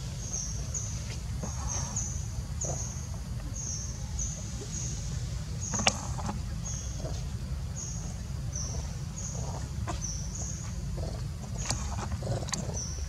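Macaques eating jackfruit: soft smacks and clicks of chewing and handling the fruit, one sharper click about six seconds in. Under it runs a steady low rumble, and above it a short high chirp repeats nearly twice a second.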